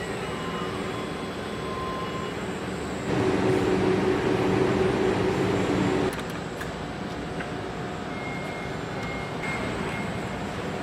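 Truck assembly plant floor noise: a steady machinery hum and hiss with a few steady tones. It gets louder with a stronger drone for about three seconds in the middle, then settles back.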